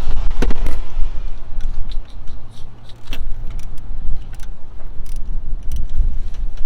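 Scattered metallic clinks and clicks of hand tools and small parts handled in an engine bay during a spark plug and ignition coil change, over a steady low rumble of wind on the microphone.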